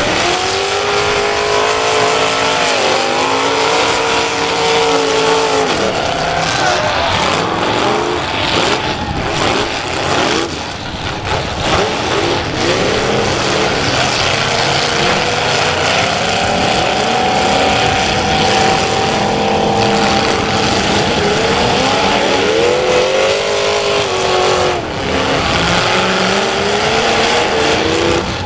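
Demolition derby cars' engines revving hard on a dirt track, their pitch climbing and falling again and again, with a brief lull about ten seconds in.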